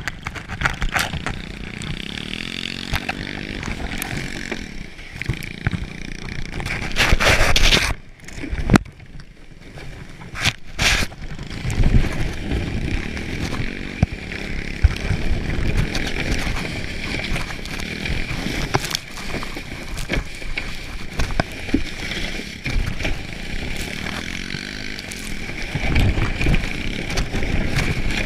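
Plastic sled scraping and bumping over snow as it is towed, with a pit bike's small engine running ahead.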